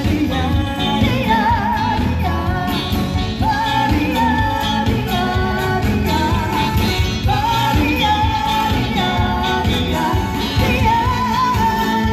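Background music: a pop song with a sung melody held with vibrato over a band accompaniment.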